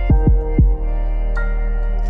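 Background music: held synth chords with three deep, quickly falling drum beats in the first half-second, then the chord shifts about one and a half seconds in.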